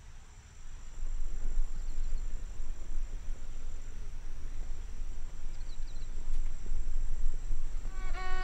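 Insects trilling steadily over a low, rough rumble of outdoor noise. A bowed fiddle melody starts just before the end.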